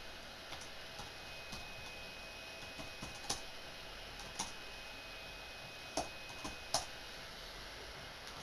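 Computer keyboard being typed on slowly: sparse, irregular key clicks, four of them noticeably louder, over a steady low hiss.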